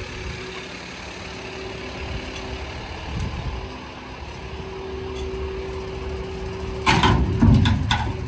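Unimog engine running with a steady hum while the hook-lift trailer's hydraulics lower a steel bin. About seven seconds in, a loud run of metal clanks and thuds as the bin drops down the last bit onto the ground.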